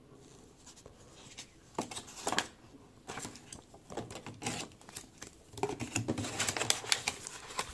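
Unboxing noise from a docking station's box and packaging being handled: scattered sharp clicks and taps, growing into busier clicking and rustling over the second half.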